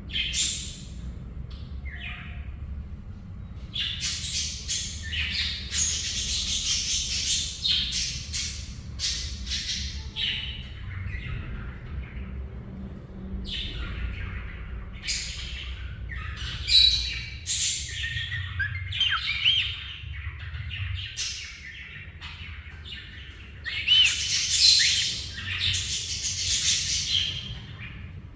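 Small pet parrots chirping and squawking in repeated bursts, with a few short whistled glides mixed in.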